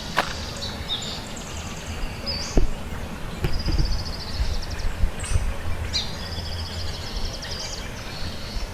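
Birds calling in the trees: several high, rapid trilling calls, over a low rumbling outdoor background.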